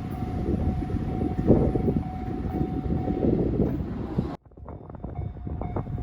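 A 521 series electric train running over a level crossing with a rumbling of wheels, while the crossing alarm rings a steady tone. The sound cuts off abruptly about four seconds in, and the crossing alarm carries on over quieter background noise.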